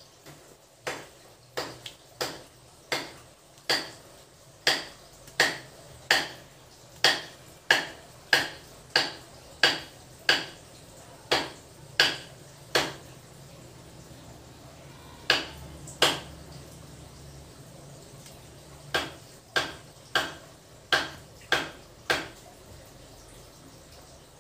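A long series of sharp, ringing clicks, irregularly spaced at roughly one to two a second, pausing twice along the way and stopping a couple of seconds before the end.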